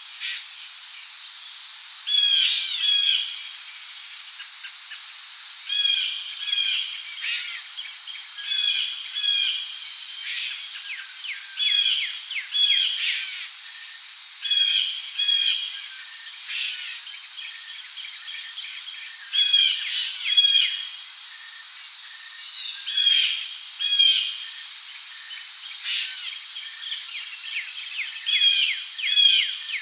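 Tropical rainforest ambience: a steady high-pitched drone of insects such as crickets, with birds calling over it in short phrases of two or three quick notes, repeated every second or two.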